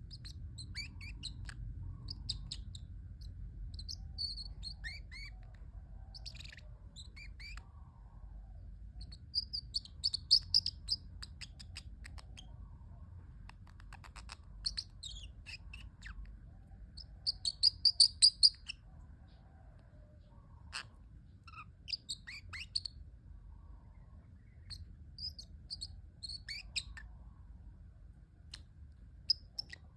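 Parrotlet chirping in short high calls, with quick louder runs of chirps about a third of the way in and again a little past halfway.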